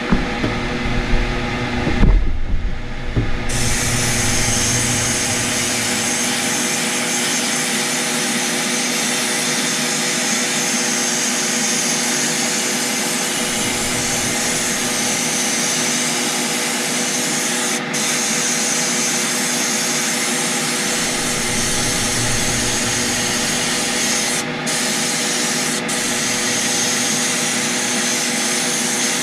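Sandblast cabinet's blast gun spraying abrasive media: a steady hiss of compressed air and sand over a constant hum. The spray cuts out for about a second and a half around two seconds in, and for split seconds a few times later.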